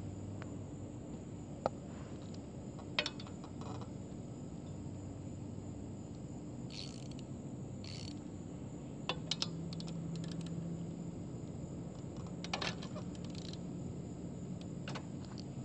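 Intermittent sharp metallic clicks and rattles from hand tools working on the dirt bike. Some come in quick runs, like a socket ratchet's pawl clicking as a bolt is turned, over a steady low hum.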